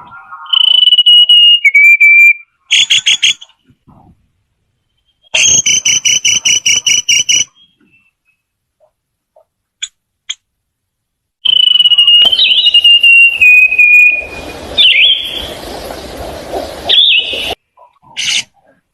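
Black-headed sibia giving loud, clear whistled song: held whistles that step down in pitch alternate with runs of fast repeated notes. A few seconds of rustling noise join the whistling near the end.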